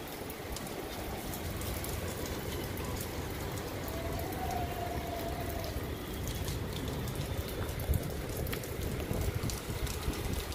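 Steady rain falling on a wet concrete rooftop, with scattered drop ticks over a low, buffeting rumble of gusty wind.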